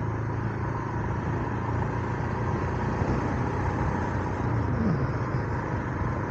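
Royal Enfield Himalayan 411's single-cylinder engine running at a steady road pace, mixed with steady wind and road noise from riding behind a cut-down short windscreen. A short falling tone comes about five seconds in.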